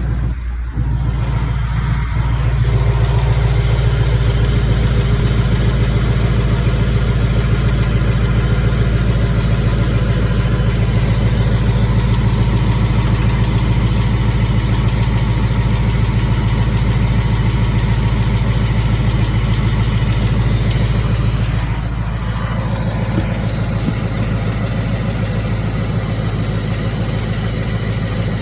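2019 Mustang GT's 5.0-litre Coyote V8 idling steadily, with a light ticking that the owner cannot place as coming from the engine or the exhaust. It gets a little quieter about three-quarters of the way through.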